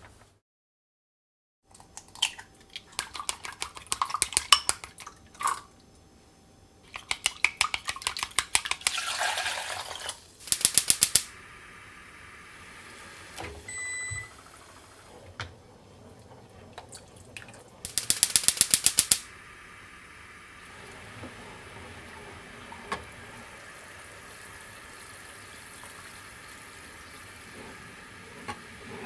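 Plastic salad spinner rattling with rapid, even clicks in several bursts as it is spun. A short beep sounds midway. After that, broth simmers steadily in a small saucepan.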